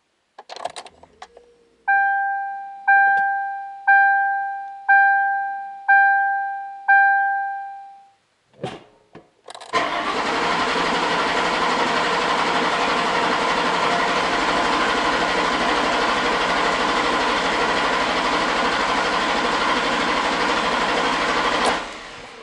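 Ford Crown Victoria dash warning chime bonging six times, about once a second, then a few clicks and the starter cranking the 4.6L V8 steadily for about twelve seconds without it firing: a no-start crank to prime oil pressure, which rises as it cranks.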